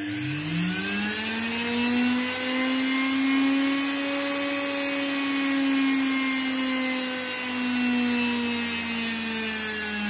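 Washing-machine brushed motor run through a 2000 W triac dimmer, speeding up as the knob is turned: its whine climbs in pitch within the first second, then runs steadily at high speed and eases slightly lower toward the end.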